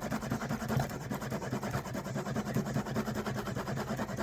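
Cloth rubbing rapidly back and forth along the edge of a leather sheath to burnish it with burnishing gum, in quick, even strokes.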